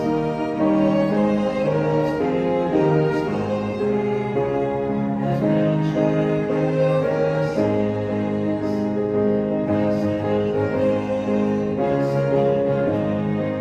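Slow background music with long held notes.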